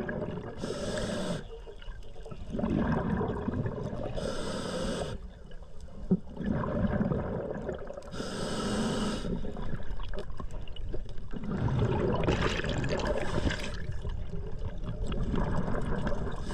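A scuba diver breathing through a regulator underwater: a sharp hiss on each breath alternating with a longer rush of bubbles, about one breath every four seconds.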